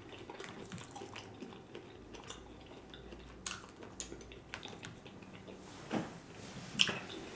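Close-miked eating sounds: a fork working in a bowl of pasta, then faint wet chewing and mouth sounds with a few small clicks.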